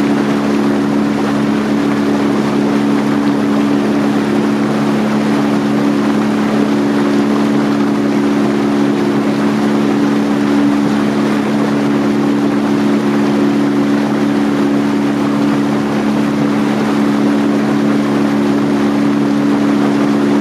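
Tour boat's motor running steadily, a constant hum heard from on board the moving boat.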